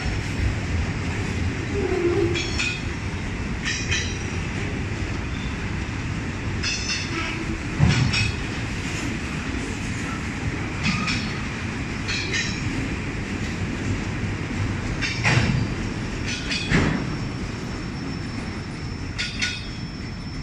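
Autorack freight cars rolling past on steel wheels: a steady rumble with repeated short high squeals and clicks as the wheels pass, and a few louder clanks, the loudest about eight seconds in.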